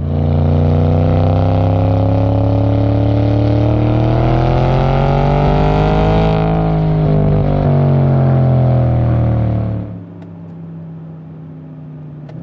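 Twin-turbo 4.0 V8 of a stage-3 tuned Audi S6 fitted with RS7 turbos, accelerating, heard from the exhaust. Its note climbs slowly in pitch for about six seconds, then falls as it eases off. About ten seconds in it drops sharply to a much quieter steady cruise.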